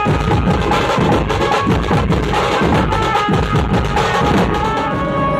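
Dhumal band playing: dense, driving beating on large dhumal drums, with a faint keyboard melody held over the drumming.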